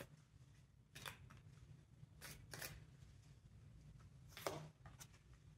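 Oracle card deck shuffled by hand: about six faint, short card riffles and slides, roughly a second apart, over a low room hum.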